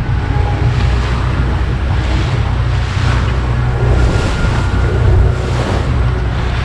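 A boat's motor running steadily with a low hum, with water rushing past the hull and wind buffeting the microphone in gusts.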